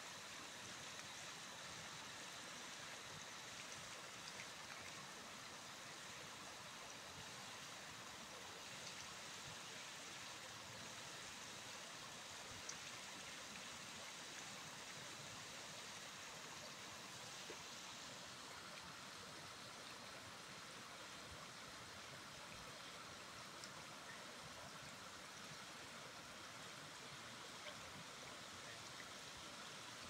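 Shallow water running over low stone steps: a steady, faint rushing.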